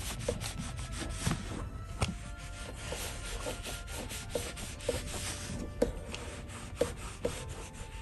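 Mini iron pushed and slid back and forth over quilted cotton fabric: a continuous rubbing and scraping with frequent small knocks as it is shoved into the folds.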